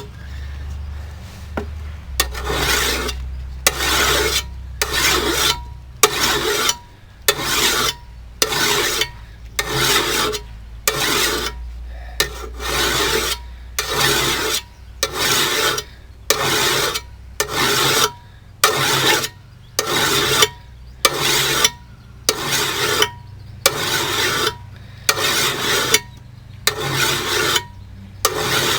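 Hand file drawn along the edge of a steel brush-cutting blade in even rasping strokes, about one a second, putting a new edge on it. A short pause in the strokes about a second in.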